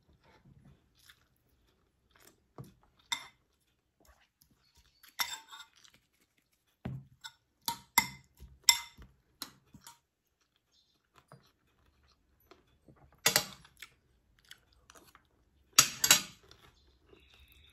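A person eating at close range: chewing and mouth sounds, with scattered sharp clicks and clinks of a spoon and fingers against a plate and bowl. The loudest come in two short bursts near the end.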